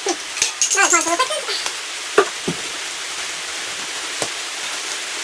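Rain hissing steadily on the roof, with a few sharp clicks and knocks from bike parts being handled and a brief squeak about a second in.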